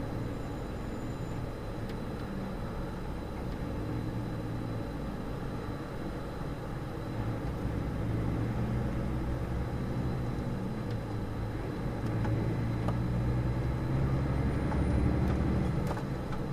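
Truck engine running, heard from inside the cab, with its low note shifting up and down as the truck slows and picks up speed again, under road noise.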